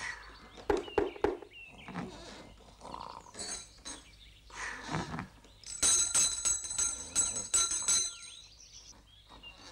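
Small brass hand bell rung rapidly, about four or five strokes a second, for about two seconds past the middle. Before it come short grunting vocal sounds and a few knocks.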